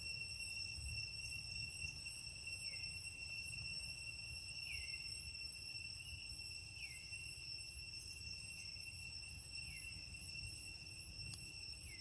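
Steady high-pitched drone of insects such as crickets, with a short falling chirp about every two seconds and a low rumble underneath.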